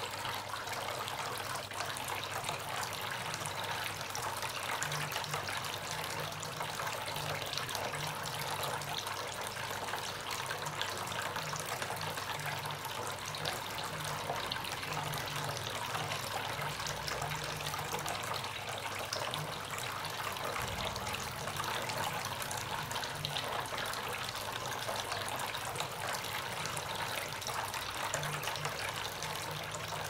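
Small tabletop cascade fountain running: water spilling from its two spouts into the basin below, a steady trickle.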